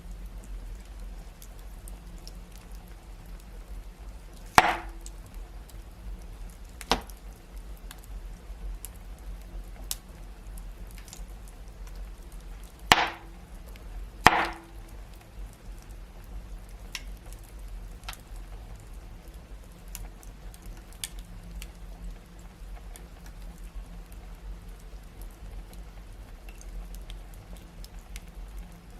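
Wood fire crackling steadily with a soft hiss and small ticks, and four loud sharp pops of burning logs, two about 2.5 seconds apart near the start and two more about a second apart halfway through.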